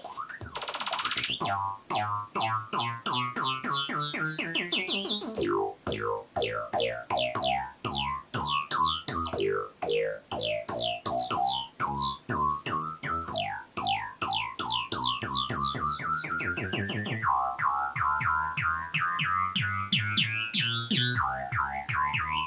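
Electronic oscilloscope music: synthesizer tones in fast, repeated falling chirps, several a second, over a pulsing bass line. The pattern changes abruptly about three quarters of the way through. The stereo waveform is built to draw pictures on an oscilloscope.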